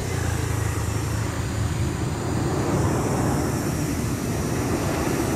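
Jet engines of a Lion Air airliner on final approach with its gear down, heard from the ground as a steady low rumble.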